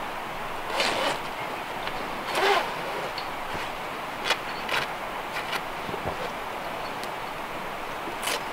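Canvas tent wall being handled and hung from its frame: a handful of short rustles and scrapes over a steady background hiss.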